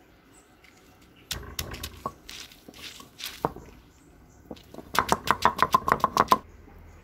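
Stone roller knocking and scraping on a flat grinding stone, crushing garlic cloves: a few scattered knocks and scrapes, then a quick run of about a dozen sharp stone-on-stone knocks near the end.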